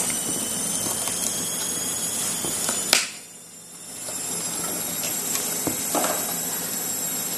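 Small kitchen knife cutting through yardlong beans held over a wooden chopping board: a few faint clicks and snaps over a steady hiss. A sharp click comes about three seconds in, after which the sound drops low for about a second before the hiss returns.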